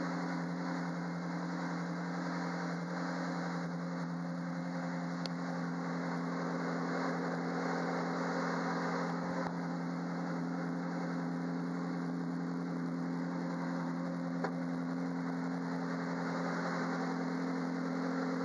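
Ferrari 458 Challenge's 4.5-litre V8 idling steadily, heard from inside the stripped race cockpit.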